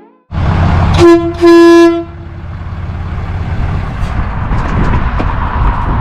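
Train horns on a Dodge Ram pickup sounding two loud blasts: a short one about a second in, then a longer one right after. This is the horn kit being tested after its compressor, tank, wiring and air lines were redone. A steady running noise starts just before the horns and carries on after them.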